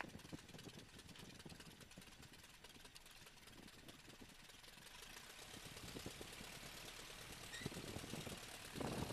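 A de Havilland Tiger Moth's four-cylinder inverted inline engine idling faintly at low revs, with a fine rapid pulsing, during the landing roll on grass. It grows a little louder near the end.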